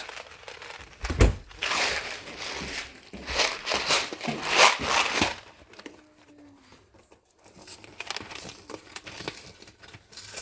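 Macaroni packaging being torn and crinkled, in rustling bursts for about the first five seconds, then fainter rustles and light taps.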